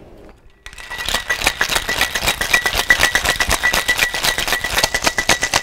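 Ice rattling hard inside a metal cocktail shaker being shaken vigorously, a fast, dense clatter that starts about a second in.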